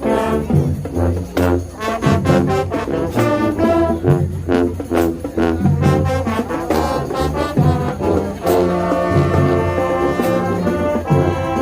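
Marching band playing a brass-heavy tune. Loud trombone and trumpet chords sound over percussion hits on the beat, with a longer held chord a little past the middle.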